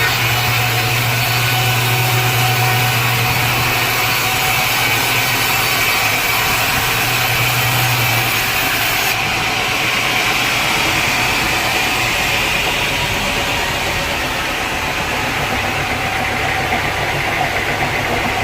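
Sawmill machinery running steadily with an engine-like drone and a hiss. A low hum drops away about eight seconds in while the rest runs on.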